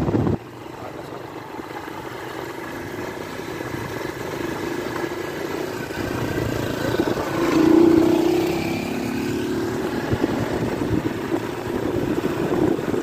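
Motorcycle engine running while riding on a dirt road, getting slowly louder, with a louder rev about eight seconds in.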